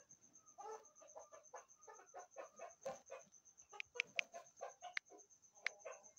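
Chickens clucking faintly in a quick run of short calls, with a few sharp high peeps in the second half, over a steady faint high whine.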